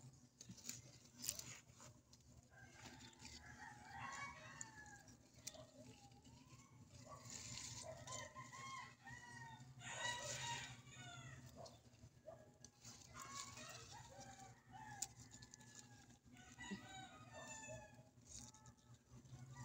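Chickens clucking and calling faintly: many short calls one after another, thickest in the middle, over a steady low hum.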